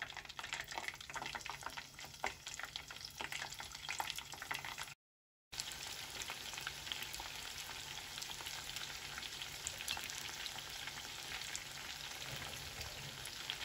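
Flour-coated chicken wings deep-frying in hot oil in a wire fry basket: a dense, steady sizzle and crackle of bubbling oil. The sound cuts out completely for about half a second a little over a third of the way in, then the sizzle resumes, more even.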